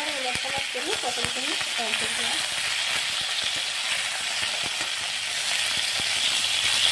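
Pointed gourd (potol) pieces sizzling steadily as they fry in oil in a steel kadai, with a metal spatula clicking and scraping against the pan as they are turned, most of the clicks in the first two seconds or so.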